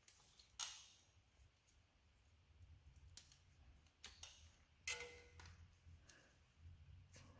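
A few sharp, scattered metallic clicks and taps of hand tools on rear-axle parts, one about five seconds in ringing briefly, over a faint low hum.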